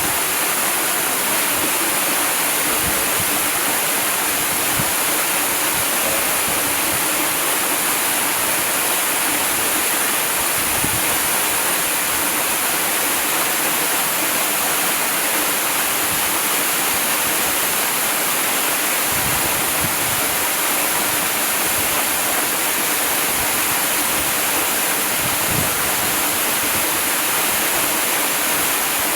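Waterfall: water pouring and splashing in a steady, continuous rush.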